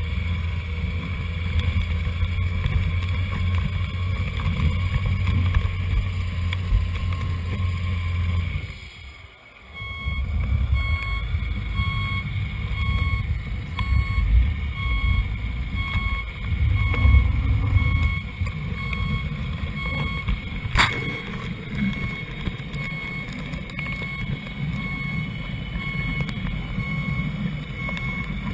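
Sound modules of radio-controlled model trucks: a low, steady simulated diesel-engine rumble that drops out briefly about nine seconds in. A reversing beeper then repeats steadily to the end, and there is one sharp click about twenty-one seconds in.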